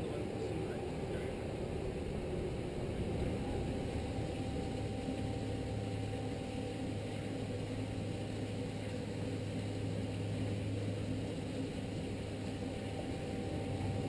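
Sea Ray 330 Sundancer cruiser's inboard engines idling with a steady low hum, the boat moving forward at dead slow.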